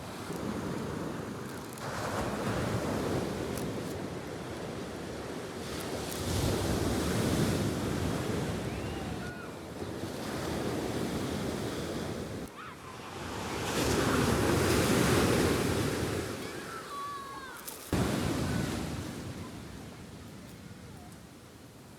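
Sea waves washing onto the shore, swelling and falling away in surges every few seconds, with some wind.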